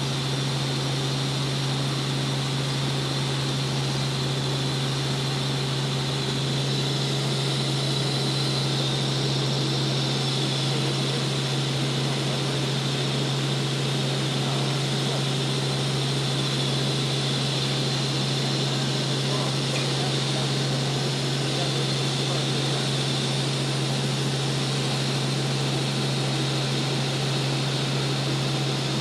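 Light helicopter in cruise flight heard from inside the cabin: a steady low hum under an even rush of engine, rotor and wind noise, unchanging throughout.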